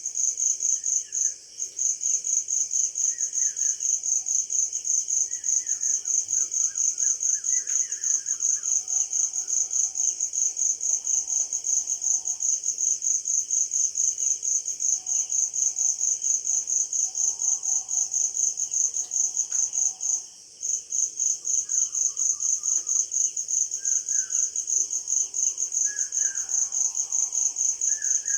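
Cricket chirping in a fast, steady, high-pitched pulse, breaking off briefly about a second and a half in and again about twenty seconds in. Birds call faintly now and then.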